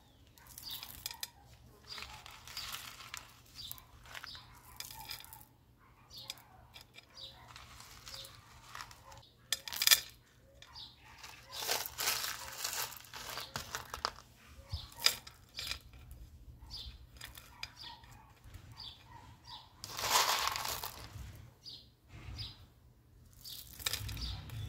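Small white decorative pebbles being picked from a small plastic pot and set around a succulent on the soil of a terracotta pot: irregular small clicks and rustles of stone on stone, plastic and soil, the sharpest click about ten seconds in.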